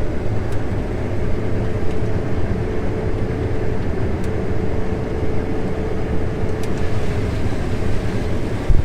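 Class 7 combine running with its separator and corn head engaged, a steady drone with a thin whine over it, heard from inside the cab.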